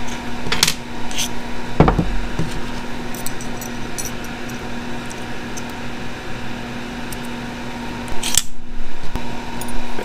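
Small metal and plastic shifter parts clicking and knocking as they are handled and set down on a workbench while a short throw shifter is assembled. The strongest knock comes about two seconds in, and a louder clatter comes near the end. A steady hum runs underneath.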